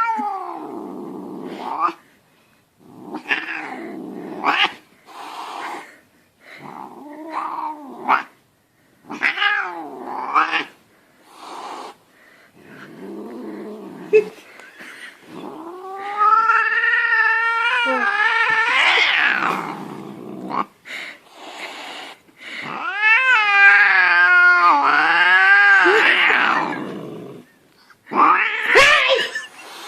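Angry domestic cat yowling and growling in a run of drawn-out, wavering howls. The longest howls, each several seconds, come about halfway through and again about three-quarters of the way through.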